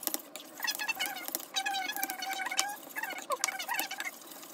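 A spoon clicking and tapping against a bowl as food is stirred and mixed, in many short irregular clicks. Faint wavering high-pitched tones run in the background.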